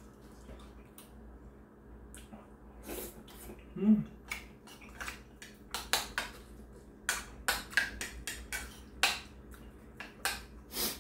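Metal spoon clinking and scraping against a ceramic bowl as someone eats from it, with short clicks that come thicker in the second half. There is a brief hummed voice sound about four seconds in.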